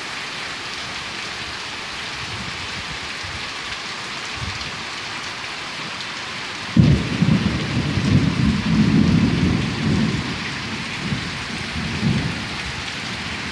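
Heavy rain falling steadily in a thunderstorm. About halfway through, a clap of thunder breaks in suddenly and rumbles loudly for about five seconds before dying down.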